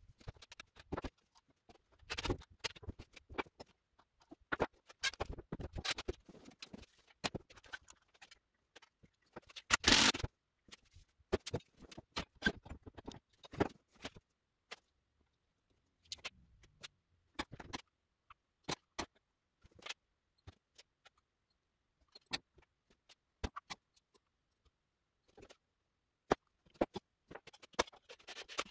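Irregular clicks, taps and clinks of hand tools and metal parts being handled while a minibike is assembled, with a louder burst of knocking about ten seconds in.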